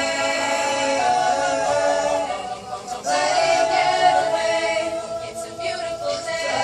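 Small mixed-voice a cappella choir singing sustained chords, with a brief dip about three seconds in before the voices come back in.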